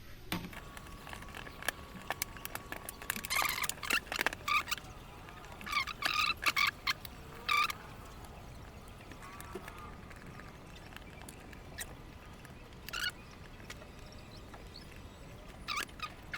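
Scattered small clicks of the laptop's plastic bottom cover being fitted back on. Over them come several clusters of short, loud pitched calls, like a bird's, about three to eight seconds in and again near the end.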